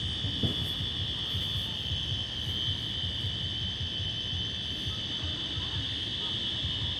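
Building fire alarm sounding a steady high-pitched tone without a break, over a low rumble of background noise.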